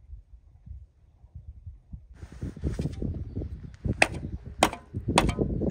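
Hoe chopping into snow-dusted soil: sharp strikes about every 0.6 s, beginning about four seconds in, with handling and scraping noise just before.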